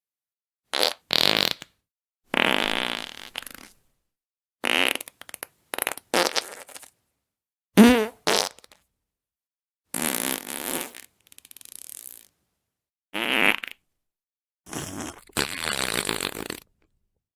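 A run of about eight separate fart sound effects, each a second or two long with silence between them. They range from short sputters to longer ones, and one near the middle is a buzzing, pitched fart that wobbles up and down.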